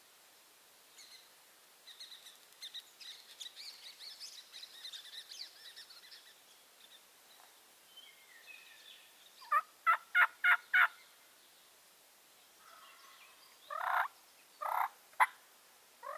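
Wild turkey calling: a quick run of five evenly spaced yelps, then a few louder calls near the end, with faint high bird chatter before them.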